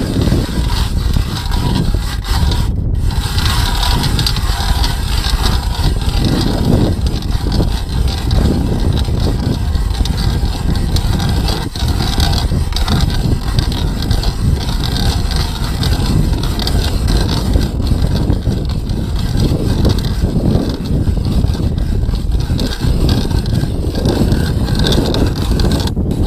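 Hand-cranked ice auger grinding through lake ice, a steady scraping crunch as the blades cut and throw up ice shavings, with wind rumbling on the microphone.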